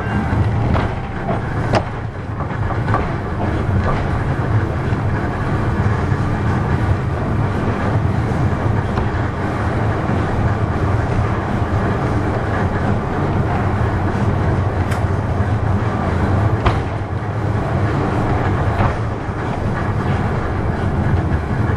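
Kintetsu Nishi-Shigi Cable funicular car (Ko 7 type, No. 8) running downhill, heard from inside the car: a steady low rumble of wheels on the rails, with a few sharp clicks.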